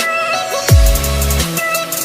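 Background electronic music: a melody over a heavy bass, with one deep bass note swooping sharply down about a third of the way in and then holding.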